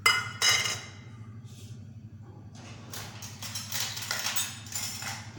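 Spoon scraping against a container and pan while sugar or jaggery is spooned into heating water. There are two short scrapes at the start and a run of scrapes in the second half, over a steady low hum.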